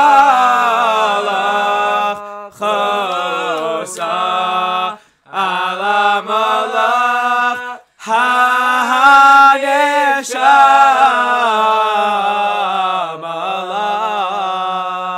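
Unaccompanied male singing: a cappella melody in several phrases with short breaks between them, the last phrase drawn out over several seconds.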